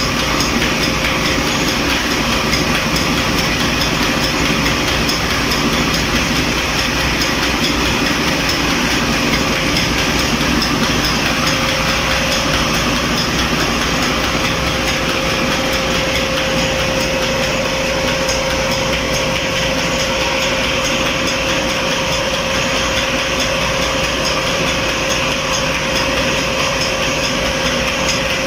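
Belt-driven atta chakki (flour mill) running on its electric motor while grinding grain: a loud, steady mechanical drone. A steady whine grows stronger about halfway through.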